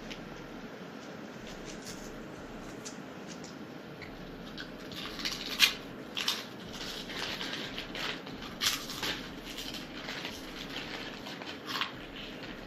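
Sharp, irregular crackles and crunches of potato chips and their packets being handled and eaten, beginning about five seconds in, over a faint steady hiss.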